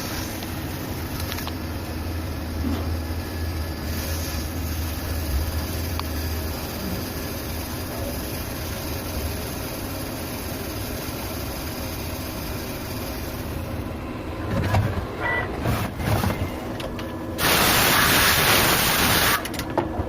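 Machinery running steadily, with a few knocks late on and a loud, even hiss lasting about two seconds near the end.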